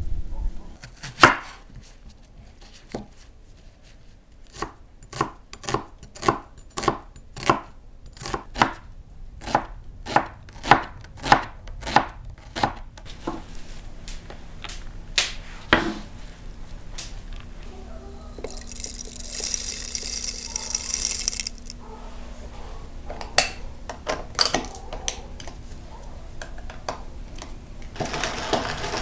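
A kitchen knife chopping onion on a wooden cutting board: a steady run of knocks, about two or three a second, then scattered strikes and a few seconds of scraping. Near the end, a hand pepper mill grinding.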